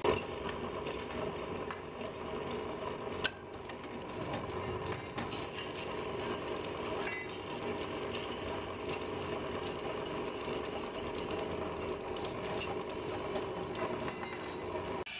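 Bench drill press running, its twist bit cutting into a steel plate, with a steady machine hum. A sharp click about three seconds in.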